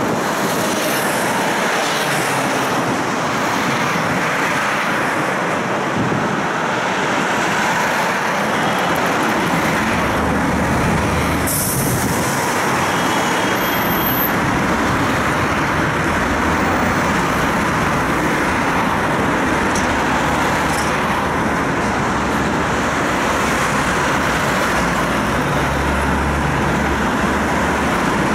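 Steady running noise of a moving tram heard from on board: wheels on the rails and motor rumble mixed with passing road traffic. The low rumble grows after about ten seconds, and there is one brief click about eleven and a half seconds in.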